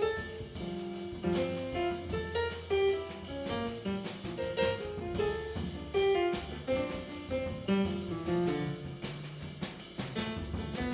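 A jazz quartet of saxophone, keyboards, drums and bass playing, with a busy drum kit and cymbal strikes under a quick run of melodic notes over the bass.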